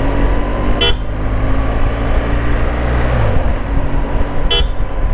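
Two short horn beeps, about four seconds apart, over the steady running of a BMW R1200GS motorcycle's boxer-twin engine at low road speed. The engine note dips slightly about three seconds in.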